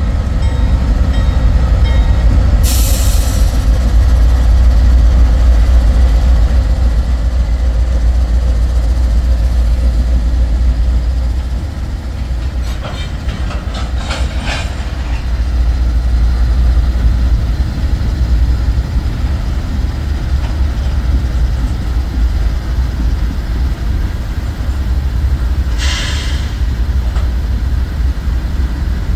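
A lash-up of Norfolk Southern diesel-electric locomotives rolling slowly past, their engines giving a deep, steady rumble that eases slightly about halfway through. A short hiss comes about three seconds in and again near the end, and a run of metallic clicks and clanks from the wheels and running gear falls around the middle.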